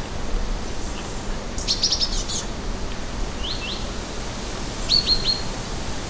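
A small bird chirping: three quick runs of short, high chirps, about two, three and a half, and five seconds in, over a steady low hum.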